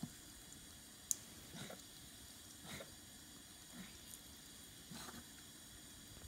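Ragdoll cat drinking from a thin stream of running tap water in a sink: a faint steady trickle with soft short sounds about once a second as it drinks, and one sharp click about a second in.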